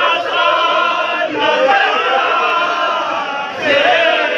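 Men chanting a Muharram mourning lament (noha) together, a lead voice with the crowd singing along in long held phrases; a new phrase starts near the end.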